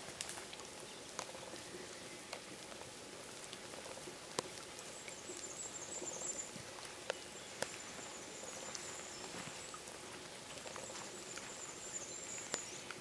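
Rain pattering and dripping in a spruce wood, with scattered sharp clicks of drops landing close to the microphone. A faint, high, thin sound comes and goes through the second half.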